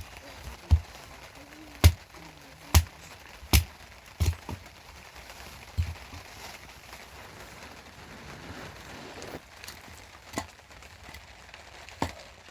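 A series of sharp knocks or blows, several about a second apart in the first few seconds, then only a few more, spaced further apart, over a faint steady background.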